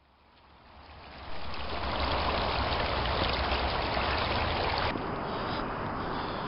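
Small creek trickling and splashing over rocks, a steady rush of running water that fades in over the first second or so.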